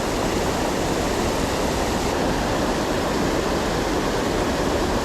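Creek waterfall and white water rushing in a steady, even roar.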